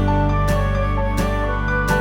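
Soft background music: gentle new-age instrumental with sustained notes over a deep bass, and a plucked note about every 0.7 seconds.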